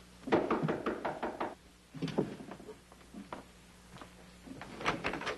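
Clusters of sharp wooden knocks and clatters, one quick run of several strikes near the start and another near the end. They are knocking at a room door mixed with the rattle of things being put back into a wooden dresser.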